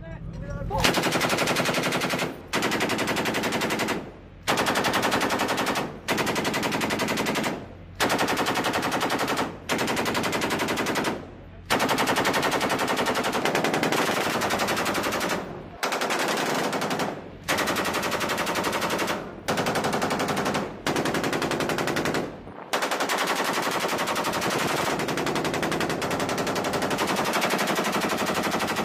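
Belt-fed machine gun firing long bursts of automatic fire, each about two seconds, separated by brief pauses, with one unbroken burst of about six seconds near the end.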